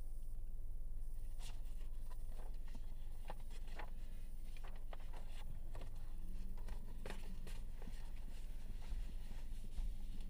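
Steady low rumble inside a stopped car's cabin, with faint scattered clicks and ticks.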